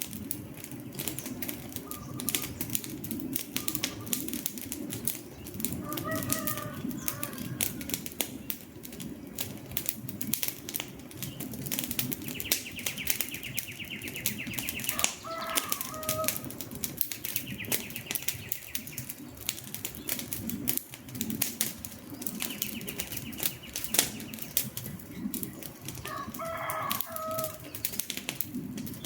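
Wood fire crackling, a steady stream of sharp pops and snaps over a low rush of flames. A bird calls in short clucking notes three times, and a higher trilling call comes and goes.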